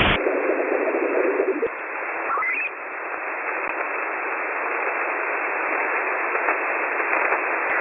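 Shortwave radio receiver hissing with band noise and static between stations, heard through a narrow receiver passband. A faint steady tone carries for about the first second and a half, and a brief rising whistle comes about two and a half seconds in.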